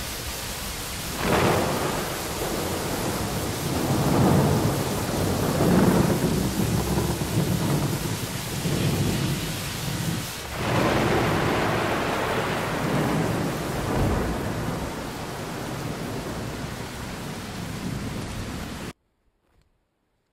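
Wind buffeting the camera's microphone: a rushing roar with deep rumble that swells in irregular gusts, cutting off abruptly near the end.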